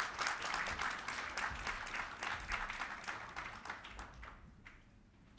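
Audience applauding: dense, irregular clapping that thins out and dies away about four to five seconds in.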